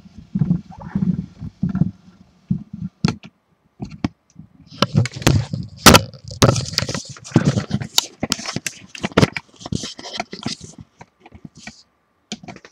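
Hands working on a computer case and its parts: a run of irregular clicks, knocks and scrapes of small metal and plastic pieces, thickest in the middle, with one sharp loud click about halfway through.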